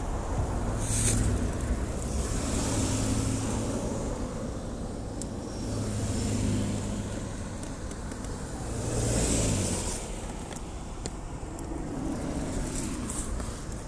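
Road traffic: vehicles passing one after another, each swelling and fading, loudest about a second in, about six seconds in and about nine seconds in.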